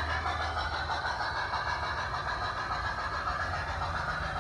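Soundtraxx steam-locomotive sound from a battery-powered Bachmann Spectrum 2-6-0 G-scale model, running steadily along with the train's wheels on the track.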